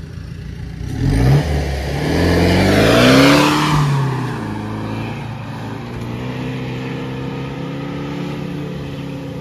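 Mahindra Thar engine revving hard as the 4x4 pulls away over wet sand. The pitch climbs from about a second in, with a rushing noise under it, peaks at about three and a half seconds, then drops back to a steady run.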